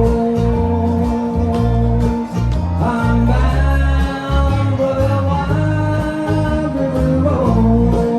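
A bluegrass band playing live: strummed and picked acoustic strings under a sung melody, with held notes that slide in pitch about three seconds in and again near the end.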